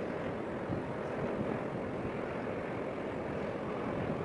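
Steady rushing of wind and harbour water with a low rumble underneath, even throughout with no distinct events.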